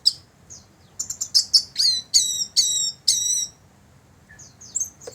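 Orange-headed thrush (punglor, anis merah) singing: a quick burst of sharp notes, then a string of repeated falling whistled notes, with a few softer calls near the end.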